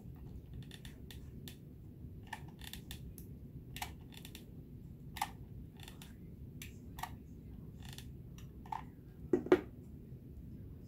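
Irregular light clicks and taps from a hot glue gun being worked and felt-and-foam-board craft pieces being handled, about a dozen over several seconds, with a louder short sound near the end.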